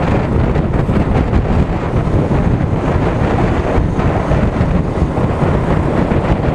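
Steady, loud wind buffeting the microphone of a camera on a moving motorcycle, with road noise underneath.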